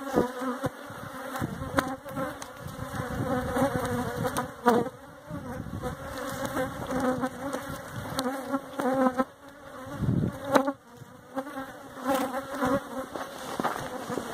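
Honeybees buzzing in flight around the hives, a continuous wavering hum whose pitch and loudness rise and fall as bees pass close. A few sharp knocks cut in, the loudest about five and ten and a half seconds in.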